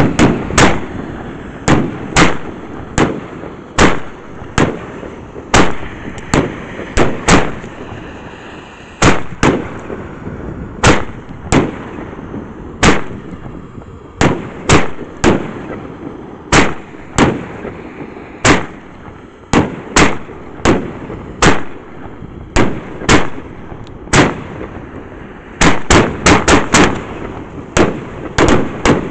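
A 25-shot, 38 mm firework cake (Funke Sweden Colosso Triple-Gold) firing. Loud, sharp bangs come one after another, about every half second to a second, with a quick flurry of several shots near the end.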